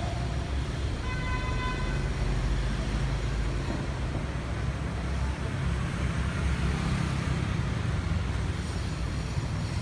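Street traffic running steadily, with a vehicle horn honking once for about a second about a second in.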